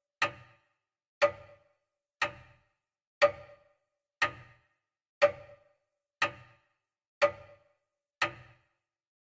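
Clock-like ticking: one sharp tick every second, nine in all, each fading quickly into silence.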